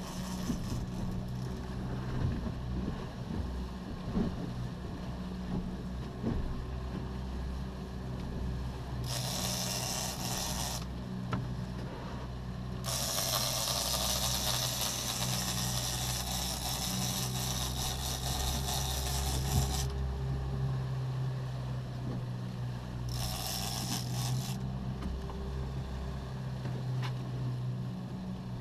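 A boat's outboard engine running steadily, with a big-game fishing reel whirring in three stretches, the longest a few seconds long in the middle, as the wahoo is played on the rod.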